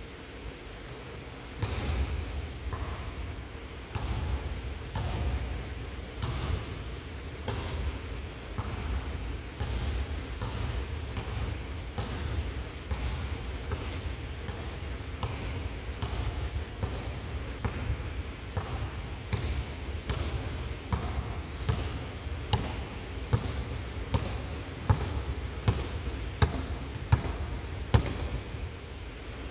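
Basketball bouncing on a hardwood court in a large empty arena, about one to two bounces a second, the bounces sharper and louder in the last several seconds. A steady low rumble runs underneath.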